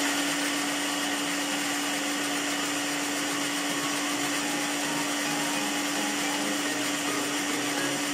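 A small electric food processor motor running steadily at speed while blending garlic cloves and ginger. It gives one steady whining tone over a dense whirring rush.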